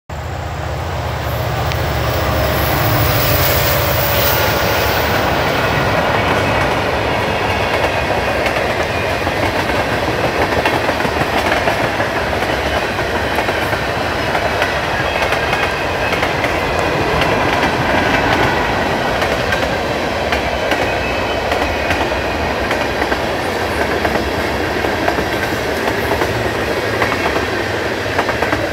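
Freight train of tank cars rolling steadily past, steel wheels clacking over the rail joints in a continuous run of clicks over a rumble, the rumble deeper in the first few seconds.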